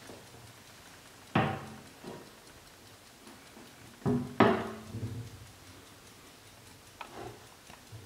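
A gilded brass carriage clock being handled: three sharp metallic knocks with a brief ring, one about a second and a half in and two close together about four seconds in, as its case and carry handle are gripped and moved. A faint tick from the clock's movement goes on between them.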